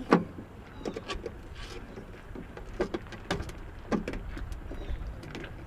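Scattered clicks and knocks from a small storage cubby in a pickup truck's interior being opened and handled, the sharpest click right at the start, over a low rumble.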